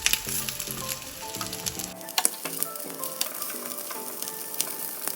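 Marinated chicken pieces frying in butter in a pan, with a steady sizzle and scattered crackles, under a light background melody.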